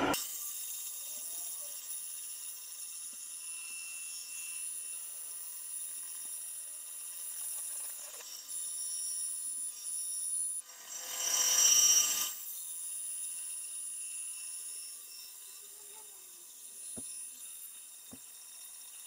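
Bandsaw running with a steady high whine while a 5 mm carbon fiber plate is fed through it. About eleven seconds in, a louder cutting noise lasts a second or so as the blade works through the plate. Two light knocks come near the end.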